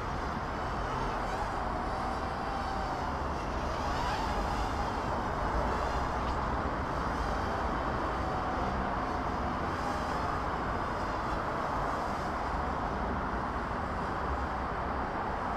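Small toy quadcopter's motors and propellers buzzing steadily, their pitch wavering up and down as the throttle changes, over a steady rushing background.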